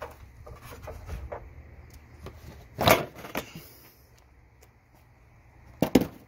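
Light clicks and a few sharp knocks: hand work on parts in a car's engine bay. The loudest knock comes about three seconds in and a sharp double knock near the end.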